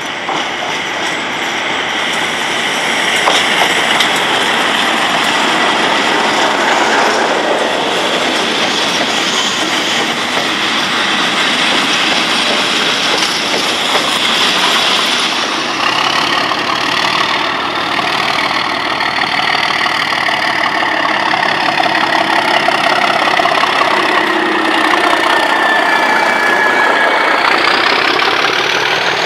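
Class 37 diesel locomotives, their English Electric V12 engines running, rolling slowly past at close range. Wheels clatter on the rails, and a high whine rises in pitch in the second half.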